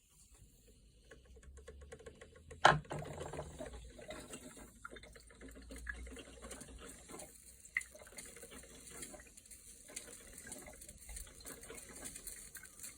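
Yabano coffee maker running: a sharp click about three seconds in, then a steady rushing, watery noise of the machine working, with a smaller click a few seconds later.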